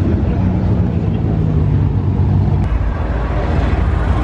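Car engines running, a loud low sound with a steady, slowly falling tone. About two and a half seconds in it changes abruptly to a rougher, choppier engine sound.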